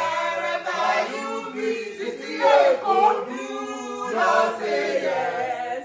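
A group of people singing a Nigerian nursery rhyme together in chorus, several voices overlapping.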